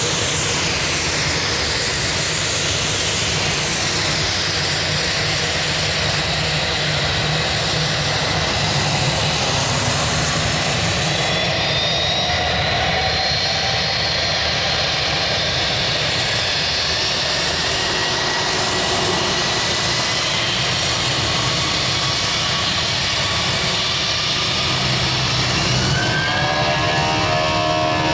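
Airbus A320's twin IAE V2500 jet engines whining steadily as the airliner taxis and lines up. Near the end a new, rising engine tone comes in as the engines spool up to takeoff thrust.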